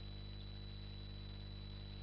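Steady low electrical hum with a thin high whine and faint hiss, unchanging throughout: the recording's noise floor, with no other sound.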